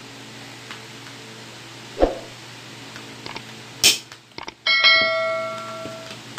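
Steel wire and pliers being worked around a steel bolt used as a spring-winding form: a dull knock about two seconds in, a sharp metal click just before four seconds, then a metal clang near the end that rings for about a second and a half.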